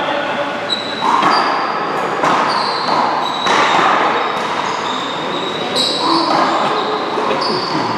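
Echoing ambience of a large indoor handball hall: background voices, with a few sharp ball smacks against a wall or floor.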